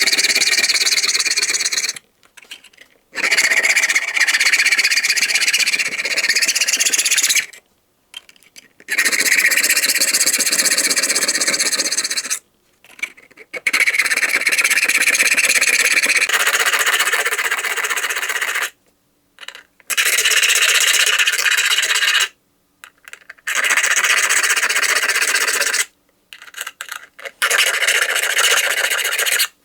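Sharpening tool rasping rapidly against the teeth of a Victorinox Swiss Army knife's saw blade, in seven bouts of a few seconds each with short pauses between them.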